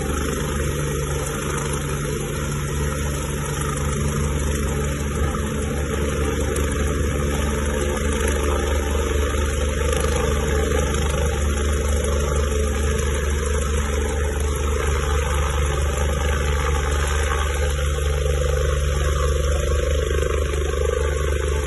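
Rescue helicopter running, a steady loud drone of engine and rotor.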